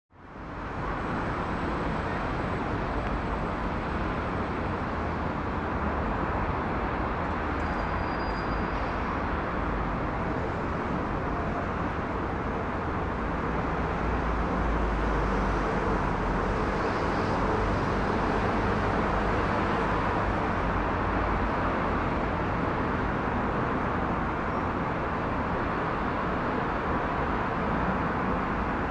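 Steady jet-engine rumble of a Boeing 777-300ER's GE90-115B engines in flight, an even roar with no distinct events.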